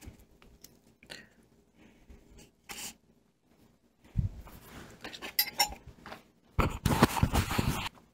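Fork and knife clicking and scraping against a plate and a nonstick saucepan as cooked chicken is moved out, with a sharp knock about three seconds in. Near the end comes a louder rustling, crunching handling noise.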